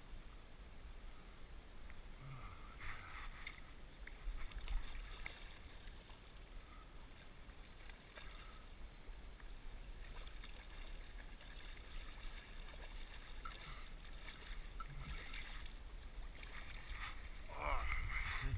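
Low wind rumble on the camera microphone with faint handling scuffs, then a louder burst of splashing near the end as a hooked trout is scooped from the river into a landing net.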